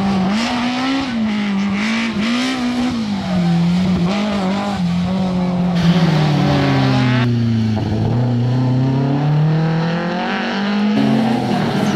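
BMW rally car engines revving hard through a stage as different cars pass, the pitch rising and falling with throttle and gear changes. Partway through one car's engine drops in pitch for about two seconds as it slows, then climbs again as it accelerates away.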